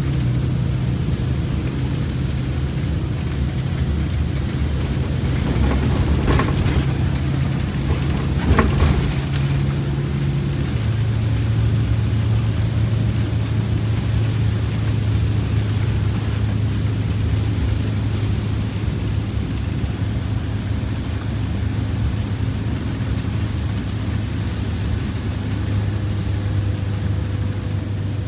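A Detroit Diesel 8V92TA two-stroke turbocharged V8 pulling the bus down the road, heard from inside the cab as a steady low drone, with its pitch dropping slightly about ten seconds in. The engine has just had four new pistons and liners. A burst of rattling and knocking comes from about six to nine seconds in.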